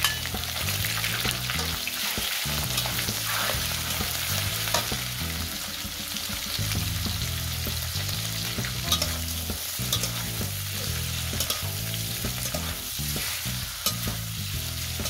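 Raw shrimp and garlic sizzling in hot oil in a wok, stir-fried with a metal spatula that clicks and scrapes against the pan.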